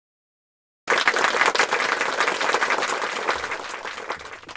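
Crowd applause, many hands clapping, cutting in suddenly about a second in and slowly fading away near the end.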